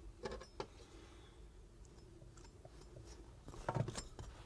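Faint handling noises from working with hand tools and materials: a few soft taps early on, then a brief louder knock and rustle about three and a half seconds in, over a faint steady hum.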